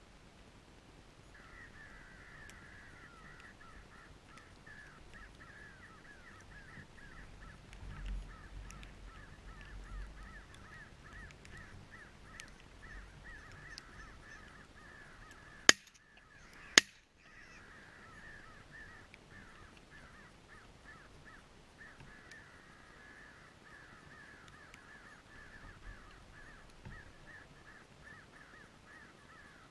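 Crows cawing in a dense, unbroken run. Near the middle, two shotgun blasts about a second apart, by far the loudest sounds, and then the cawing carries on.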